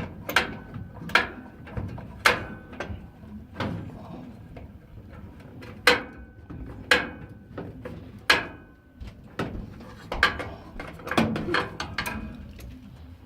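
Sharp metallic clanks and knocks, about one a second and irregular, as a furnace burner is tightened back into place with tools on its metal housing; several strikes ring briefly.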